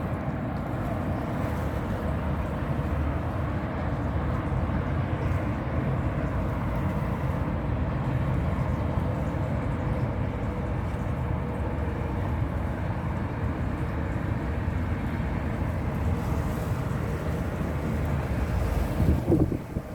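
Wind blowing across the microphone: a steady low rush with no distinct events, swelling louder in a gust near the end.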